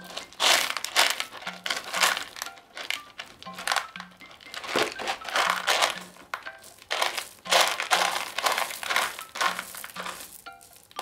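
A kitten digging in pellet cat litter in a plastic litter box: its paws scrape and scatter the pellets in repeated rustling, crunching bursts. Soft background music with plinking notes runs underneath.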